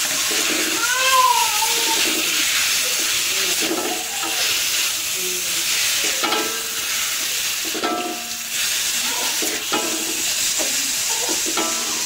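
Chili sambal with mackerel and lemon basil sizzling in a wok while a slotted spatula stirs and scrapes it around the pan. A brief rising-and-falling cry about a second in.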